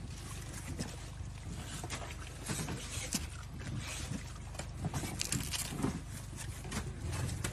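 Knife slicing hands of green bananas off the bunch's stalk: a series of short crisp cuts and snaps through the fleshy crowns, over a steady low hum.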